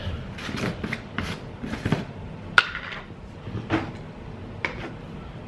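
Plastic screw-top lid being twisted off a large plastic powder tub and handled, with scattered scrapes and clicks; the sharpest click comes about two and a half seconds in.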